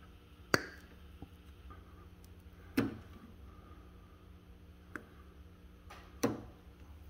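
Hand wire cutters snipping and stripping a wire end: three sharp snaps a couple of seconds apart, with a fainter click between the last two.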